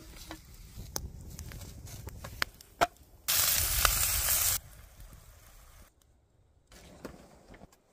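Meat slices sizzling in a hot steel pan over a campfire: a loud hiss lasting about a second and a half, starting and stopping abruptly near the middle. Around it, softer crackles and clicks of the fire and of handling.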